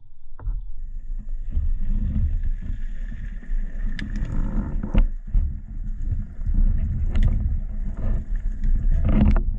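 Underwater recording of a spearfishing diver moving through water: a steady low rumble of water and movement against the camera housing, with a few sharp clicks and knocks, the loudest about four and five seconds in and a cluster near the end.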